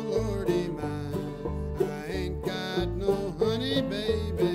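Background music: an instrumental country-blues break of plucked banjo and guitar with sliding notes over a steady bass line, no singing.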